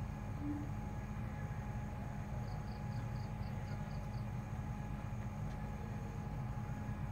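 Steady low hum and rumble with a faint steady whine, and a short run of faint high chirps, about five a second, in the middle.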